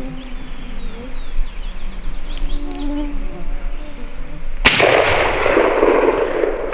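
A single shotgun blast about three-quarters of the way through, fired at a turkey, with its report echoing for about two seconds. Before it, only faint bird chirps.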